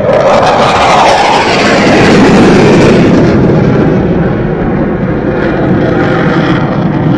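Loud jet noise from a JF-17 Thunder fighter's single turbofan engine as it flies past. The noise is loudest in the first three seconds, then eases slightly and holds steady.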